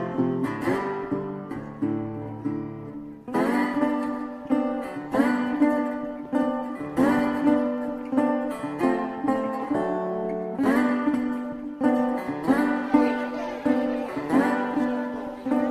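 Background music: a guitar tune of plucked notes in a steady rhythm.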